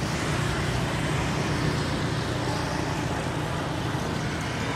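Steady street traffic noise: a continuous low hum of passing vehicles with no distinct single event.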